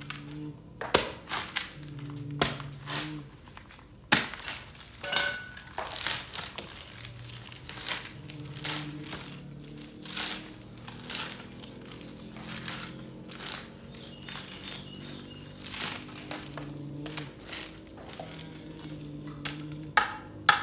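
Crisp, irregular snapping and crackling of fresh red chili peppers being picked over by hand, their stems plucked off one after another.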